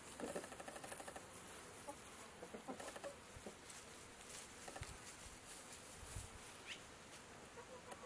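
Chickens clucking faintly and on and off, most of the calls in the first second or so.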